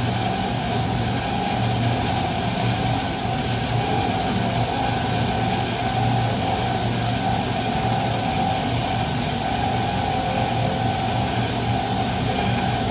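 Diamond wire saw running steadily, a continuous even machine hum that does not change in pitch or level.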